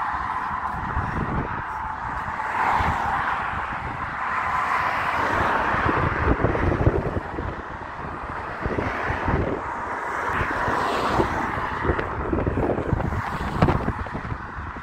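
Wind buffeting the phone's microphone in uneven gusts, over a steady hiss of traffic.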